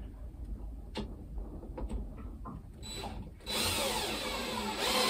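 A few light handling clicks, then a cordless drill starts about three and a half seconds in and runs on steadily as it goes into the work, fixing a curtain rail bracket above a window.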